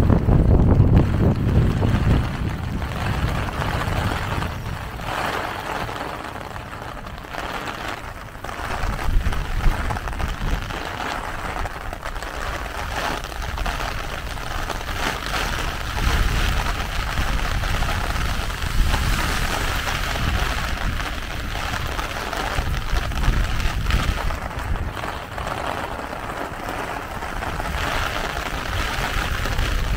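Heavy rain falling steadily on an umbrella and wet pavement, with gusts of wind buffeting the microphone, strongest at the start.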